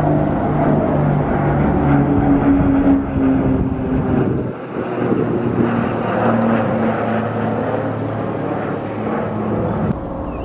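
Twin-engine propeller plane flying low overhead with its landing gear down on approach, its engine and propeller drone dropping to a lower pitch about halfway through as it passes. The sound changes abruptly shortly before the end.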